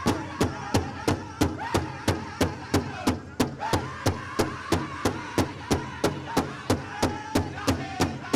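Powwow big drum struck in a steady, even beat, about three strokes a second, with a group of singers' voices carrying a prairie chicken dance song over it.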